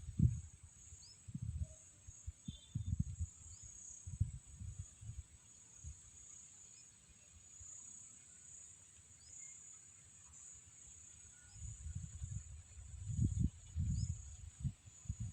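Steady high-pitched drone of insects, with faint short chirps every second or so, and irregular low rumbling gusts of wind on the microphone, heaviest near the start and toward the end.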